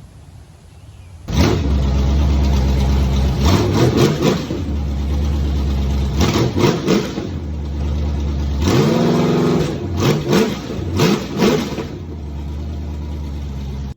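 A car engine starts sounding suddenly about a second in, running at a loud idle. It is revved several times in quick blips, with one longer rev near the middle, and drops back to idle after each.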